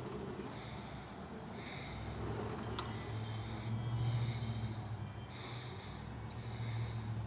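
Close breathing, with three soft breaths about two and a half seconds apart, over a low steady hum. A light click with a short high ringing, like glass or metal being tapped, comes about three seconds in.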